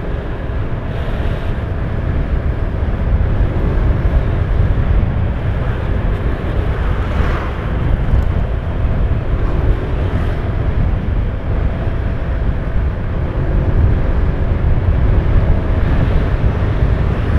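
Vehicle travelling along a road: steady engine and tyre rumble with wind buffeting the microphone. The road is a smooth, freshly cast concrete surface.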